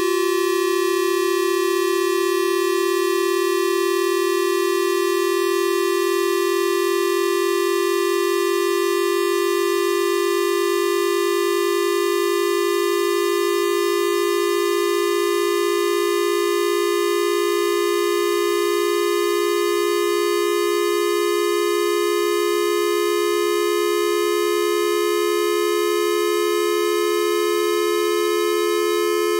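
Two synthesized square-wave tones sounding together: one held steady at C4 and one gliding slowly upward from around B3. They sit close in pitch, so the combined sound wavers, and near the end the rising tone moves clearly apart from the steady one.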